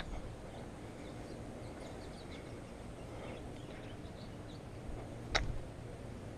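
Faint outdoor background with scattered distant bird chirps, and one sharp click about five seconds in.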